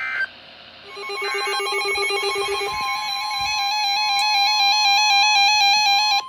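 Weather radio sounding its alert tones before a new warning: a warbling electronic beep pattern starts about a second in and grows louder, joined a couple of seconds later by a steady high alarm tone.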